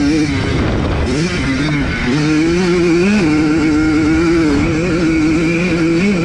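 1982 Yamaha YZ100's two-stroke single-cylinder engine running hard under race load. Its pitch dips briefly and climbs back several times as the throttle is rolled off and reopened.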